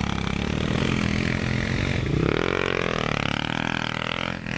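Small mini bike engine running steadily, then revving up about two seconds in. Its pitch climbs and then rises and falls unevenly as the bike pulls away along the dirt trail.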